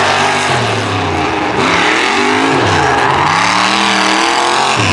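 Lifted off-road truck's engine revving hard, its pitch swinging up and down several times as the throttle is worked over a dirt jump.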